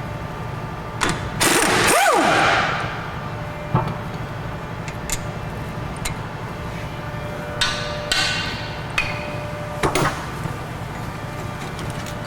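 Power wrench in short bursts, spinning the lower brake caliper bolt off the bracket: a longer run about two seconds in, with a sweep in pitch, then shorter bursts near eight and ten seconds in, over a steady shop hum.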